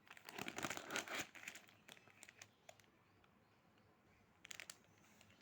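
Crinkling and rustling of stiff paper pages being handled and turned, loudest in the first second and a half, then a few small clicks a little later.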